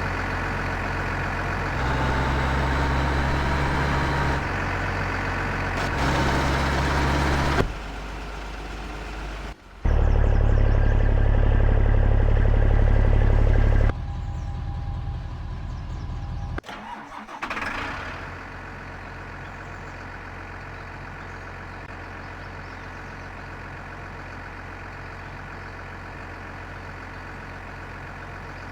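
An engine running, its loudness jumping up and down several times in the first half, then running steadily and more quietly from about two thirds of the way in.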